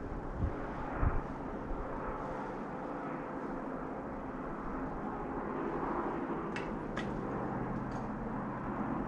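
A steady, distant engine drone holding one pitch, with a few low thumps in the first second and a couple of sharp clicks a little past the middle.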